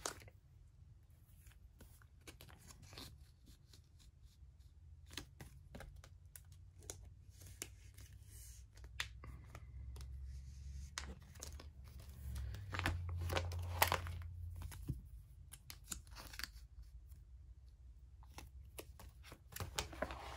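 Quiet crinkling and scattered clicks of plastic binder sleeve pages as photocards are slid into their pockets, with a page of the binder lifted and turned near the end.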